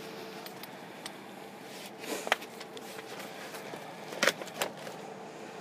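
Rummaging in a fabric equipment bag: soft rustling and a few short clicks, twice, over a faint steady hum.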